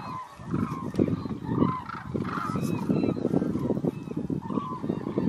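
Large flock of hooded cranes calling, many short overlapping calls running together into a continuous chorus.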